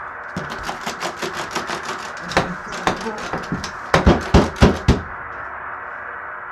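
Rapid knocking on a door, about six raps a second, building about four seconds in to five loud bangs, then stopping suddenly, over a steady hiss.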